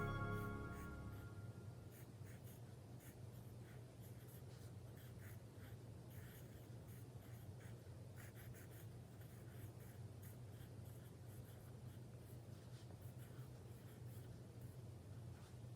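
Faint scratching of a pen or marker drawing strokes on paper, many short strokes in quick irregular succession. Background music fades out in the first second or two.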